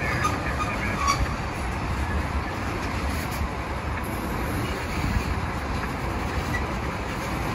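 Freight train of tank cars rolling slowly past, a steady rumble of wheels on the rails.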